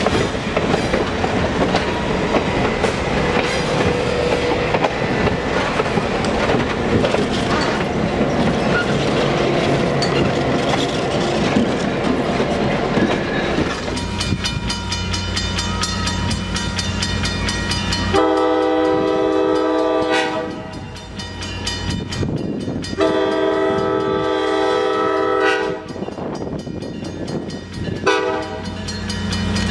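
Passenger coaches rolling past close by, their wheels clicking over the rail joints. After that, an approaching EMD FL9 diesel locomotive drones and sounds its multi-note air horn in four long blasts, warning a road grade crossing.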